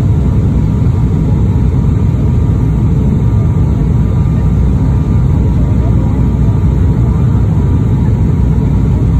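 Steady cabin noise of a high-wing turboprop airliner in descent on the landing approach, heard from inside the cabin: an even, loud, deep hum that does not change.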